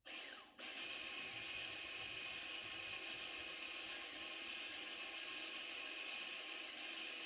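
Rear electronic parking brake motor on a 2014 Audi Q5's caliper, powered directly from a 12-volt jump box to wind the brake piston back in: a steady electric whir that drops out briefly about half a second in, then runs on evenly.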